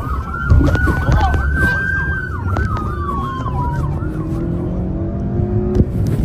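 Emergency vehicle sirens: a fast yelp rising and falling about three times a second over a slower wail that climbs, then falls away about four seconds in, with a low vehicle rumble underneath.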